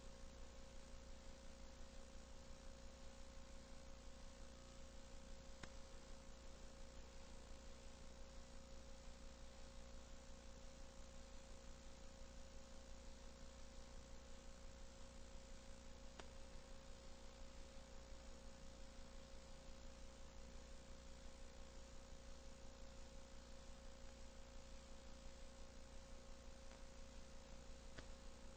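Near silence: a steady electrical hum with a thin steady tone and hiss, the background noise of playing back an old, degraded videotape.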